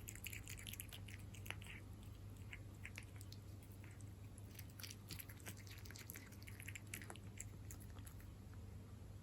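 A cat chewing wet cat food in jelly (Felix chicken in jelly). The sound is faint, irregular wet clicks and smacks of chewing, with a steady low hum underneath.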